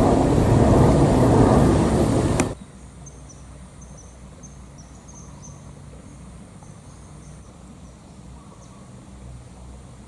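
Jet airliner passing low overhead on approach, its engines making a loud, even rumble that cuts off abruptly about two and a half seconds in. After that only a quiet outdoor background with scattered faint high chirps.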